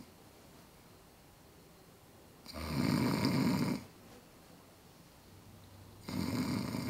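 A woman snoring in long rasping breaths, one about two and a half seconds in and another near the end, with quiet between them.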